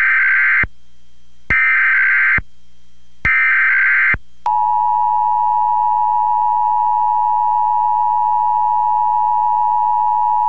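Emergency Alert System test tones: three short bursts of digital header data, each just under a second, then the steady two-tone attention signal from about four and a half seconds in.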